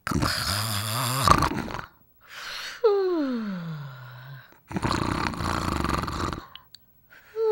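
Exaggerated cartoon-style snoring: two rasping snores with a low rattle, each followed by a whistle that falls in pitch on the out-breath.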